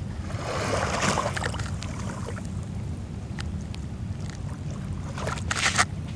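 Small sea waves washing against the shore over a steady low rumble. One wash swells up in the first second or so, and a short, louder rush comes near the end.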